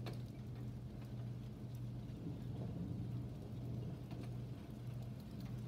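Rain starting to fall, scattered drops tapping now and then, over a steady low hum.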